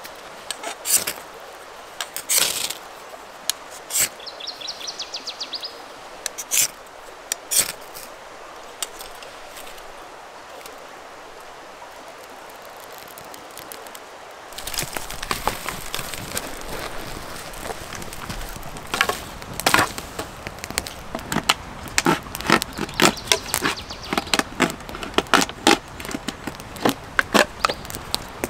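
Short scrapes and clicks as birch-bark tinder is handled and lit with a ferro rod. About halfway through, this gives way to a small stick campfire crackling with frequent sharp pops.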